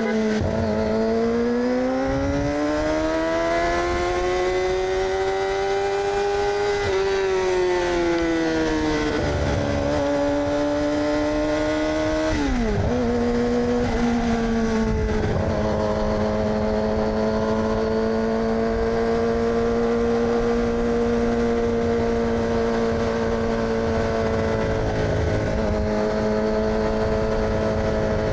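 2006 Yamaha R6's inline-four engine, with an AR aftermarket exhaust, running under way. Its pitch climbs slowly for several seconds and dips twice. It drops sharply about twelve seconds in, then holds a steady pitch to the end. Wind noise rushes underneath.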